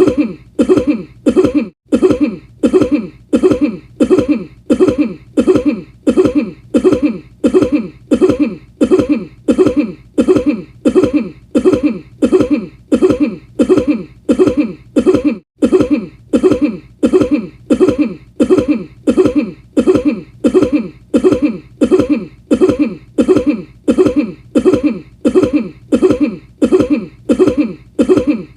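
A man's short cough repeated over and over at an even pace, about three coughs every two seconds, each one alike, as a single cough clip looped.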